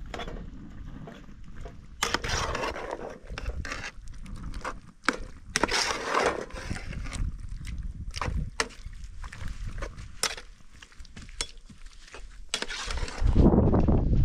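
Metal ladle stirring food in a steel pot, clinking and scraping against the pot's sides, with two longer scraping stretches. A louder low rumble comes in near the end.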